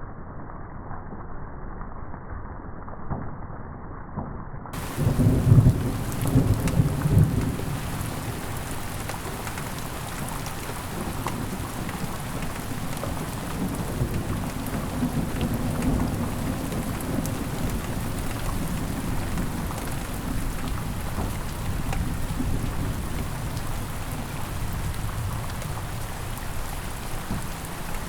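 Steady rain, muffled for the first few seconds and then opening up, with a loud roll of thunder about five seconds in and softer rumbling under the rain afterwards.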